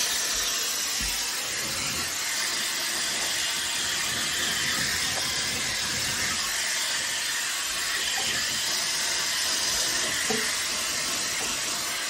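Shark Airstyler hair dryer running steadily on a high setting, a loud, even rush of air and fan hiss blowing through hair.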